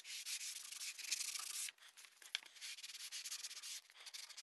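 Sandpaper rubbed by hand over a wooden panel, roughing up the surface so glue will hold. Two spells of scraping strokes with a short pause between them, a small click in the pause, and a last brief rub near the end.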